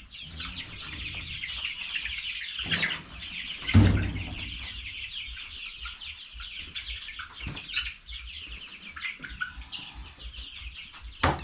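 A flock of young chicks peeping continuously in many overlapping high chirps. A loud thump comes about four seconds in, with a few lighter knocks around it.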